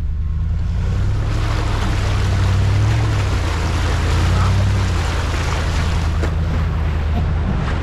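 Nissan Patrol Y62's V8 engine running at low speed, its revs rising and falling a little, as the four-wheel drive drives through a muddy water crossing, with water splashing and hissing around the front wheel.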